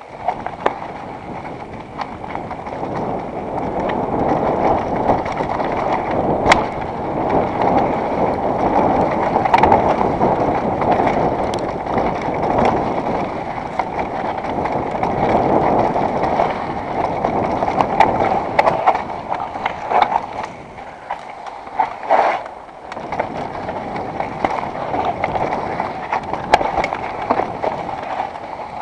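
Mountain bike descending a rocky dirt trail: a steady rush and rattle of tyres and frame over dirt and rock, with sharp knocks now and then as the bike hits bumps. It eases briefly about two-thirds of the way through.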